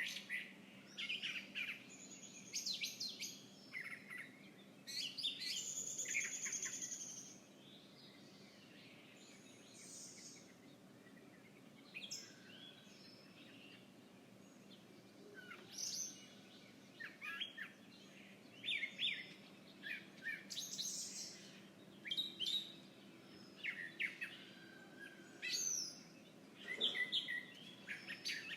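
Wild songbirds chirping and calling in quick clusters of short chirps and trills, with a lull of several seconds about a third of the way in. A faint steady low hum runs underneath.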